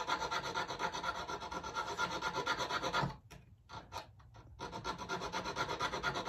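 Jeweler's hand file rasping back and forth across the ends of a silver ring band braced on a wooden bench pin, in quick repeated strokes with a pause of about a second and a half midway. The ends are being filed flat so they meet without gaps for soldering.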